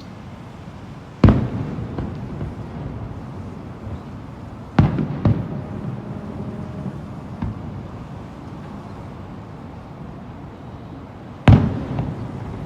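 Aerial firework shells bursting in booms: one about a second in, two close together around five seconds in, a lighter one later, and a loud one near the end, each trailing off in a rolling echo.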